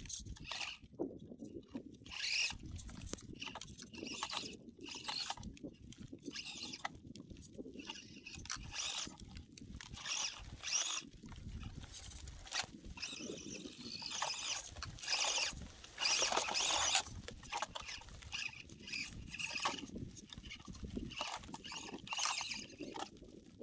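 Tiny brushed electric motor and gearbox of an Axial SCX24 1/24-scale RC crawler whining in short, irregular bursts as the throttle is worked over rocks. A low rumble runs underneath.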